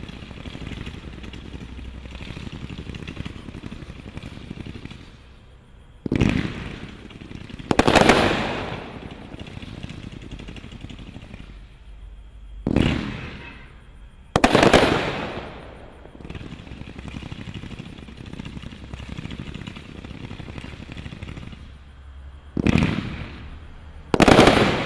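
A 213-shot, 500 g zipper fireworks cake firing a fast, continuous stream of shots. It is broken by about six much louder bangs at irregular intervals, with crackling bursts near the end.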